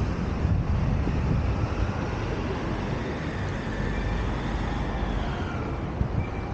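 City street traffic noise, a steady rumble of passing vehicles, with a faint whine that rises and then falls in pitch through the middle.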